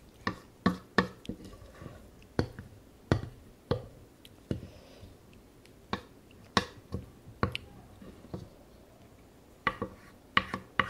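Wooden spoons scraping and knocking against a stainless steel pan while scooping up leftover fried rice: a series of sharp, irregular clicks and taps, several of them louder knocks.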